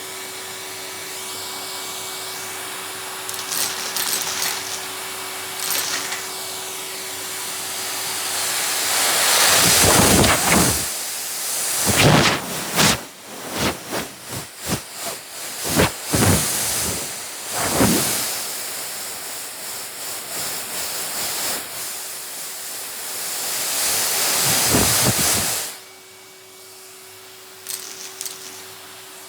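Vacuum cleaner running with a steady hum; about a third of the way in the suction noise grows loud and uneven, broken by quick rattles and clatter as hard custard apple seeds are drawn up the nozzle, then drops back to the steady hum a few seconds before the end.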